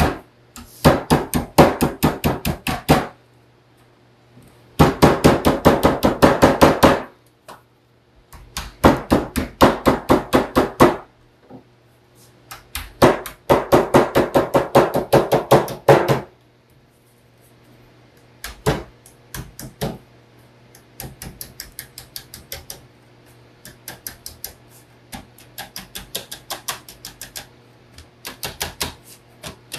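Claw hammer pounding the folded edge of a sheet-metal sheet flat against a wooden table: rapid strings of sharp metallic blows, about five a second, in bursts of two to three seconds with short pauses. In the second half the taps turn lighter and sparser. The edge is being hemmed over so that it leaves no sharp edge to cut a hand on.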